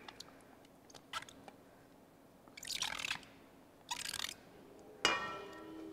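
Greek yogurt being spooned out of a plastic tub into a stainless steel mixing bowl: light clicks, then two short bursts of scraping and wet plopping. About five seconds in the spoon knocks the steel bowl, which rings on.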